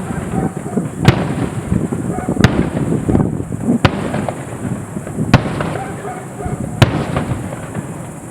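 Fireworks display: aerial shells bursting with sharp bangs about every one and a half seconds, five in all, over a continuous crackle and rumble.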